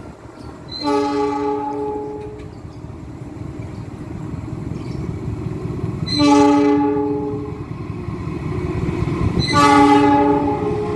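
Railway locomotive air horn sounding three blasts, about a second and a half each, spaced a few seconds apart, over the rumble of a moving train. These are S35 (Semboyan 35) horn signals, the driver's regulation horn warning.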